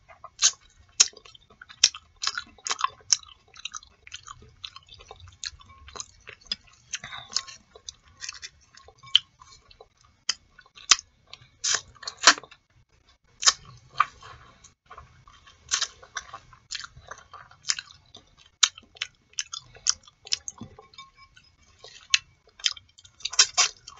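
Close-miked eating of boiled artichoke leaves: wet mouth clicks, lip smacks and chewing in a quick, irregular series as the leaves are pulled through the teeth.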